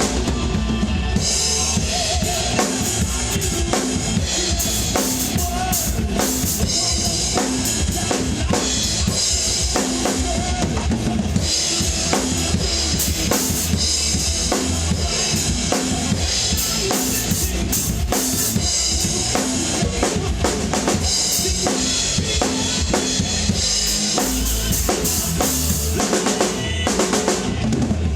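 Drum kit played steadily along to a hard rock song, with kick drum, snare and cymbals throughout.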